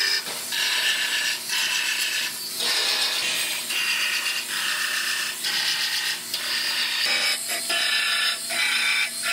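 Handheld power tool run in short bursts, a whine that starts and stops about ten times, each run under a second long.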